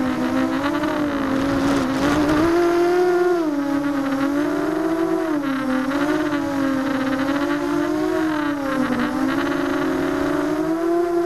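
ZMR250 racing quadcopter's brushless motors and propellers whining, heard through the onboard keycam's microphone, the pitch rising and falling again and again as the throttle changes. A brief burst of noise about two seconds in.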